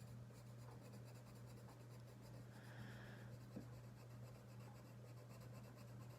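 Faint scratching of a colored pencil being worked over paper as a leaf is coloured in, under a steady low hum.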